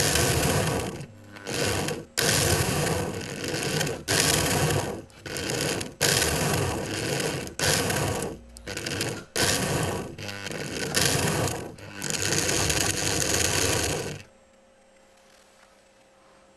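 Märklin H0 model E63 electric locomotive's motor and gears running in repeated stretches of one to two seconds, broken by short stops. It stops about 14 seconds in, leaving only a faint steady hum.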